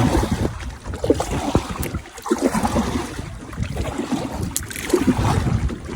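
Water lapping and splashing around a kayak's hull, with gusty wind buffeting the microphone.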